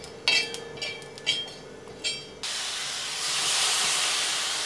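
A metal spatula scraping and clinking on an iron griddle as whole spices and garlic are dry-roasted, then from about two and a half seconds in a steady loud sizzle and hiss of masala frying in a hot pan, throwing off steam.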